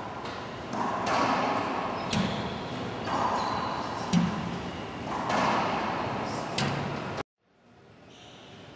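Racquetball rally: sharp smacks of the rubber ball off racquet and walls, about three loud hits roughly two seconds apart, echoing around the enclosed court. The sound cuts off suddenly about seven seconds in.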